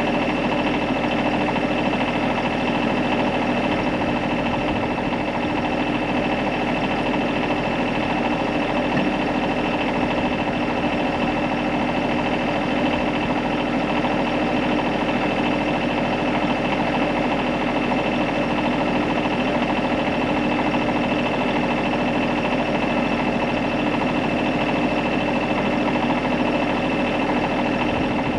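A steady, unchanging drone with several held tones.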